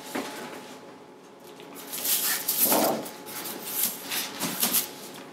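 Large paper sheets and cardboard rustling and scraping as they are leafed through in a cardboard portfolio, in several irregular bursts, loudest about two to three seconds in.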